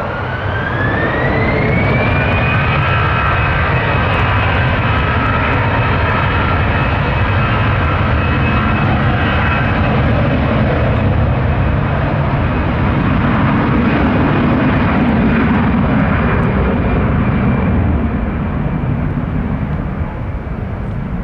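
Airbus A319's twin turbofan engines spooling up to takeoff thrust: a whine rises over the first two seconds, then a loud, steady roar with high whining tones as the jet accelerates down the runway, easing a little near the end.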